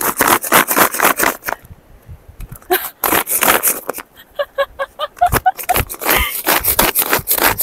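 Pull-string manual food chopper being yanked hard again and again: the cord rasps out and the blades whirr inside the plastic bowl, in three quick bursts of strokes. A woman laughs in the pause between the second and third bursts.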